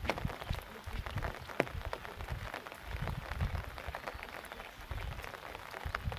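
Irregular water splashing and patter, with scattered low thumps.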